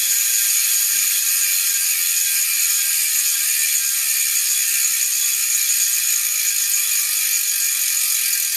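Hope RS4 rear hub's two-pawl freehub ratcheting as the wheel freewheels: a fast, steady, high-pitched buzz, quite loud.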